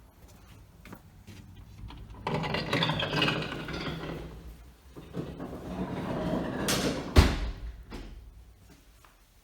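Rustling, handling noises in two stretches, then one sharp thump about seven seconds in.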